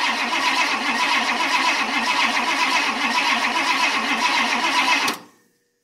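1962 Ford Thunderbird's 390 V8 being cranked by the starter motor on a cold start, a steady cranking whine that wavers up and down in pitch. The engine does not catch, and the cranking stops abruptly about five seconds in.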